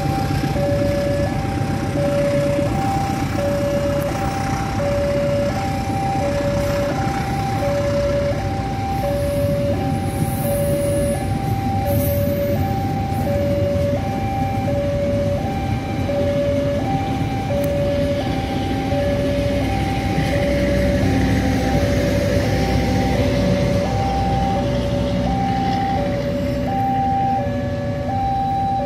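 Railway level-crossing warning alarm sounding two alternating tones in a steady repeating pattern, over the low rumble of a long passenger train running past on steel rails.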